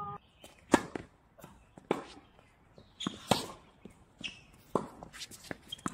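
Tennis balls being struck by rackets and bouncing on a hard court: a series of sharp pops, irregularly spaced, the loudest less than a second in and about three seconds in.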